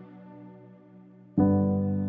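Soft background piano music: a held chord dies away, then a new chord is struck about a second and a half in and rings on.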